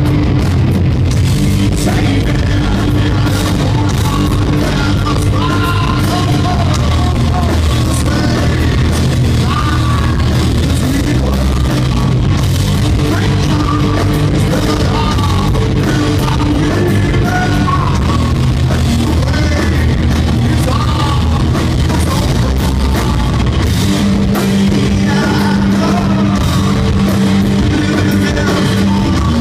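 Heavy rock band playing live and loud: distorted electric guitar, bass guitar and drum kit, with a vocalist singing and shouting over them throughout.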